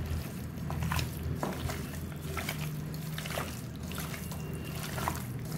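A hand mixing raw chicken pieces with yogurt and spice powders in a stainless-steel pressure cooker to marinate them: soft, irregular wet squelches with small clicks of meat against the pot.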